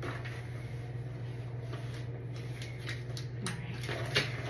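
Thin white plastic sheeting being handled and rustled, with a few sharper clicks near the end, over a steady low hum.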